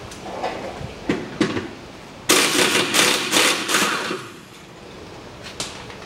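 Tool work loosening the nuts on the rear stabilizer links of a car's suspension: two sharp metallic knocks about a second in, then about two seconds of loud, rapid striking noise from the socket tool on the nut, and a few light clicks after.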